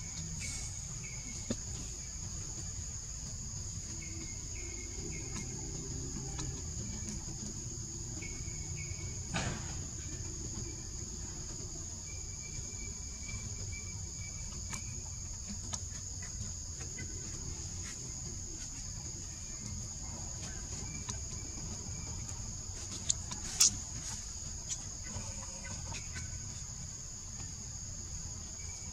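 Forest ambience dominated by a steady high-pitched insect drone in two close pitches, with faint short bird chirps now and then. A few sharp clicks stand out, the loudest a pair about 23 seconds in.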